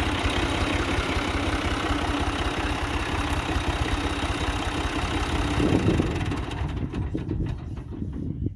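Tractor engine idling with a steady, rapid low throb; the sound grows duller near the end.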